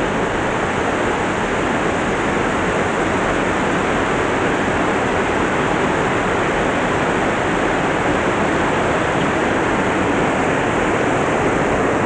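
Waterfall rushing: a loud, steady wash of falling water with no breaks.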